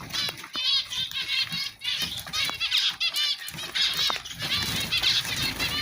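A crowd of small cage birds chirping and chattering rapidly, many calls overlapping in a dense high-pitched chorus.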